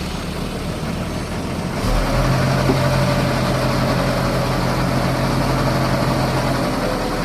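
A vehicle engine running, then speeding up about two seconds in to a louder, steady drone that holds for several seconds before easing off near the end.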